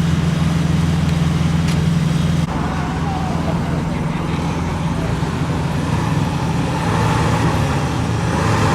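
Steady motor-vehicle and road noise with a low hum. The sound drops and changes abruptly about two and a half seconds in.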